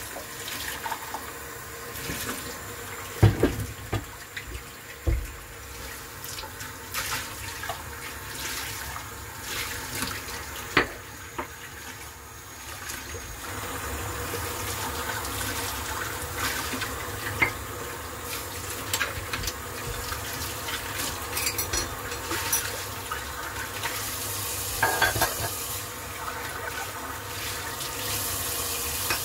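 Kitchen tap running into a sink while dishes are washed by hand, a steady water hiss with frequent clinks and knocks of cups, a glass and bowls being handled and set down, the loudest knocks a few seconds in.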